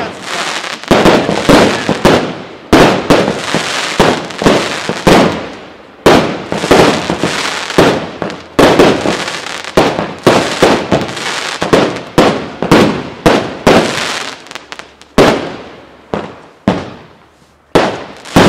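Consumer fireworks going off: a dense, rapid run of bangs from shots launching and bursting overhead, with crackle between them. About 15 seconds in it thins out to separate single bangs.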